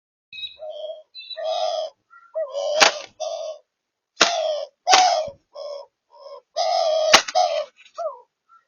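A run of short, harsh bird calls at the nest, a dozen or so in quick succession, with a few sharp clicks among them. The audio comes through a nest camera's microphone and cuts to dead silence between the calls.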